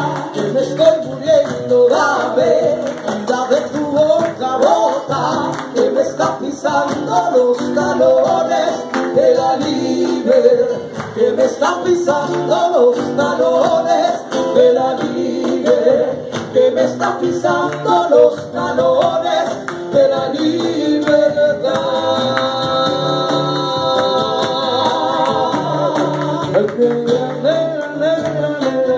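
Two women singing a song live, accompanied by acoustic guitar and congas, with a long held note a little past two-thirds of the way through.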